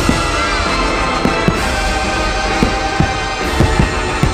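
Fireworks show soundtrack music playing steadily, with sharp firework bangs every second or so and several close together near the end.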